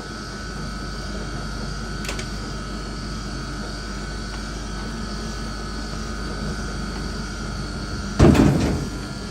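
Steady machine-like hum, with a faint click about two seconds in and one heavy thump about eight seconds in.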